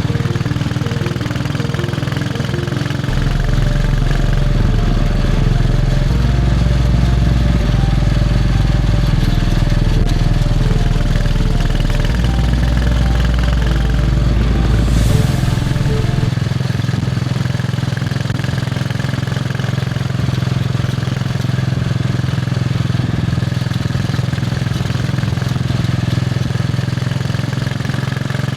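Royal Enfield Bullet 500's single-cylinder engine running steadily under way, its low thump heard from the rider's seat. A deep low rumble sits under it for the first half, and a brief rush of noise passes about fifteen seconds in.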